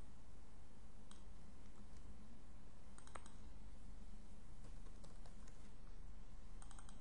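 Computer keyboard keystrokes: a few scattered taps and short quick clusters over a faint steady background hum.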